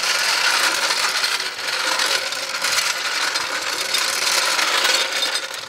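Hand-pumped hydraulic jack on a car trailer being worked with a long handle to tilt the trailer, giving a loud, continuous rattle of many small clicks that fades out near the end. It is far from quiet.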